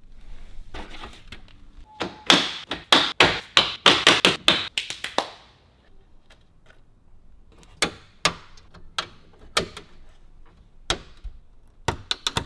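Plastic front grille of a Suzuki Jimny being pushed and knocked back into its clips. A quick run of sharp clicks and knocks lasts about three seconds, followed by a few scattered single clicks.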